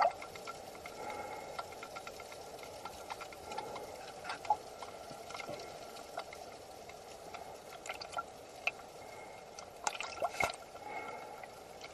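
Underwater water noise heard through a submerged camera: a steady muffled wash with scattered small clicks and ticks, and a few sharper knocks about ten seconds in.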